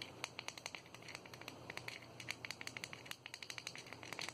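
Knockoff fidget cube's plastic controls being worked by hand: a quick, uneven run of small clicks.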